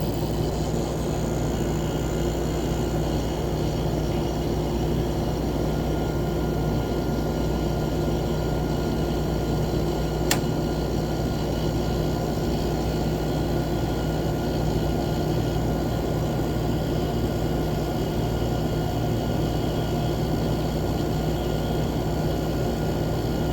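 1987 Montgomery Ward (Frigidaire-built) window air conditioner running, its Toshiba rotary compressor and fan giving a steady hum with a few steady tones. The compressor has just started after sitting unused for a long time. A single sharp click comes about ten seconds in.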